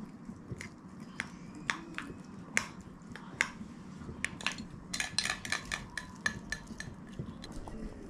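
A spoon clicking and clinking against porcelain bowls as natto, okra, negitoro and pickled radish are stirred with sauce and spooned onto rice. Scattered single clicks, then a quick run of clinks with short ringing about five seconds in.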